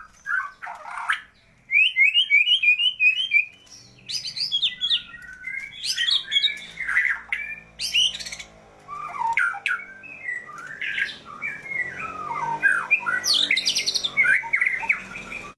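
Songbird in full song, pouring out a fast, varied string of chirps, trills and harsh squawky notes with short pauses between phrases.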